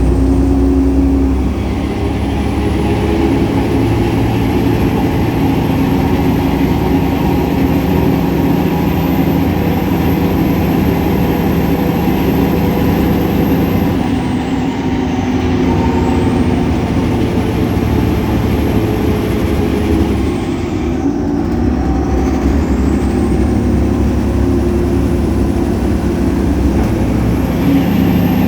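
Solaris Urbino 18 articulated bus's DAF Paccar PR265 diesel engine running with its loud belt noise, a thin high whine over the engine that slowly rises in pitch. The engine note and the whine change twice, around the middle and again about two thirds through.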